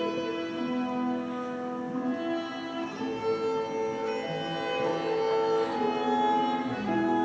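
Instrumental music with sustained string-like notes, a slow melody moving between held tones.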